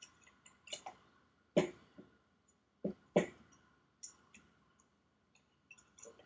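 Metal parts of a pneumatic pump motor and a wrench clicking and knocking as they are handled on a workbench while the top cover bolts are removed. There are scattered light clicks and a few louder knocks between about one and a half and three seconds in.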